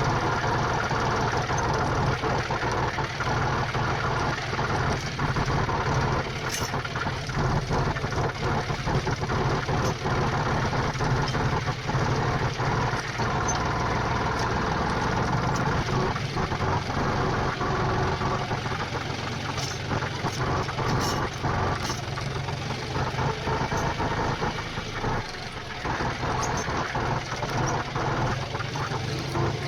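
Tractor engine running steadily at a constant speed, with a dense clatter over a low hum.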